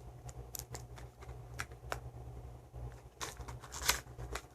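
Small plastic toy packaging being handled, giving scattered sharp clicks and crinkles, with a denser rustle about three to four seconds in, over a steady low hum.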